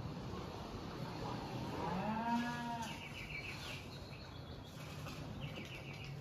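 A cow moos once, a call of about a second starting about two seconds in, followed by a few short bird chirps over a low steady background. It is a recorded rural soundscape played in a museum's village exhibit.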